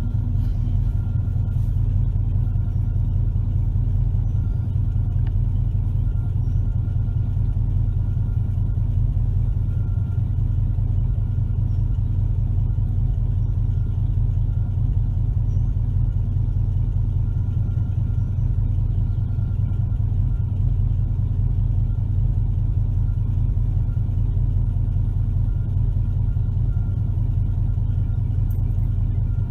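Chevrolet 454 big-block V8 idling steadily, with a faint steady high whine above the low engine note.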